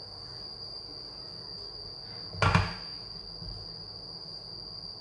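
A frying pan set down on the gas burner's metal grate with a single clank about two and a half seconds in, over a steady high-pitched whine.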